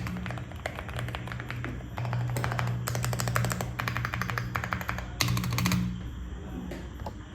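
Typing test on a Lucky65 V2 mechanical keyboard with Akko Rosewood linear switches and GMK keycaps: quick runs of keystroke clacks, densest in the middle, over background music.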